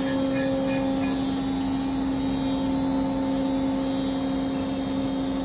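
Machine tool working an engine block, running steadily with a constant hum-like tone over a steady hiss of cutting or motor noise.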